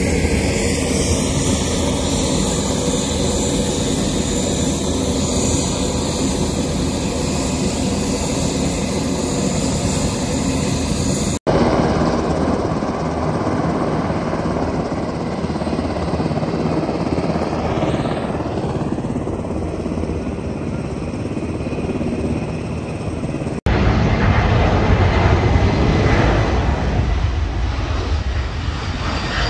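Loud, steady aircraft engine noise, broken twice by sudden cuts. In the last few seconds a C-17 jet transport takes off, and its engine noise is louder and falls in pitch.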